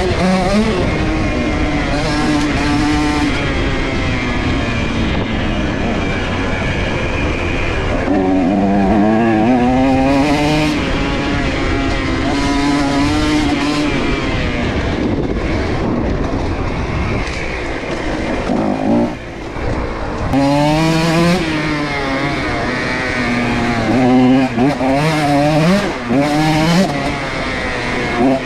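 125cc two-stroke dirt bike engine revving hard, its pitch climbing and falling again and again as the throttle is worked. There is a short lull about two-thirds through, then quick revs near the end.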